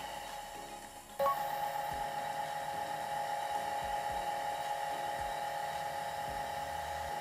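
Small watchmaker's lathe running with a steady whine while a hand-held drill bit is fed into the spinning stainless steel part to bore a threaded-hole blank. The sound dips about a second in, then cuts back in abruptly at full level.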